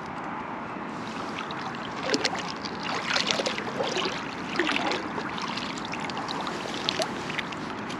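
Water splashing and trickling as a magnet-fishing magnet is pulled up out of a pond on its rope, with a scrap-metal catch stuck to it. The irregular splashes and drips come from about two seconds in to about seven seconds in.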